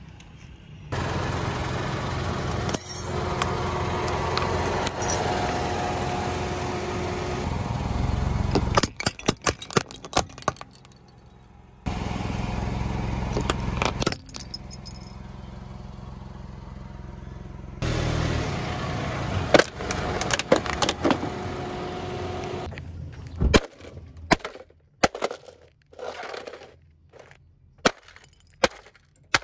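A car creeping over objects on asphalt: steady engine and tyre rumble in three stretches, each ending in a quick run of crunching cracks as the tyre crushes what lies under it. Near the end, a string of separate sharp cracks and knocks about a second apart.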